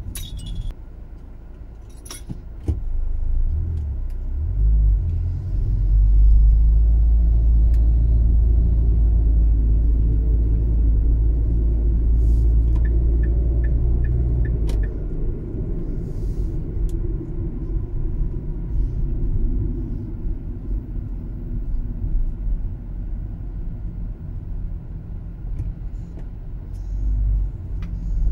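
Car driving through city streets, heard from inside the cabin: a steady low rumble of engine and road noise, heaviest through the first half. A few sharp clicks and rattles come near the start, and a short run of quick ticks, about three a second, comes about halfway.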